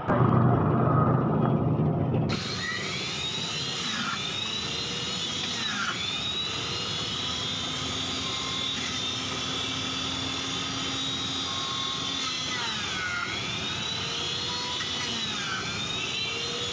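Electric centrifugal juice extractor running with a steady high whine. Its pitch sags and recovers a few times as fruit is pressed down the feed tube and the motor slows under the load. It is preceded by a loud low rumble that cuts off suddenly about two seconds in.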